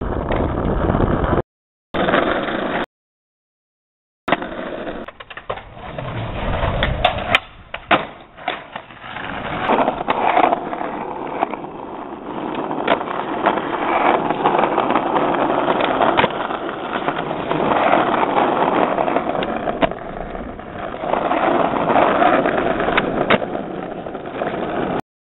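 Skateboard wheels rolling on asphalt, with several sharp clacks about seven to nine seconds in. The sound cuts out twice in the first few seconds and stops suddenly near the end.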